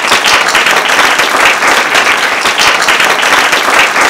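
Audience applauding at the end of a talk: many hands clapping in a loud, steady, dense patter.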